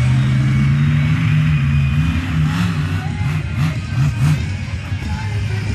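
Monster truck engine running at a steady pitch, then revved in a series of quick rises and falls about halfway through.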